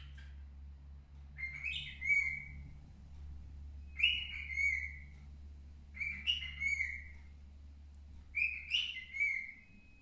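Baby cockatiel whistling its song in four short phrases, one about every two seconds, each a quick run of gliding notes, over a steady low hum.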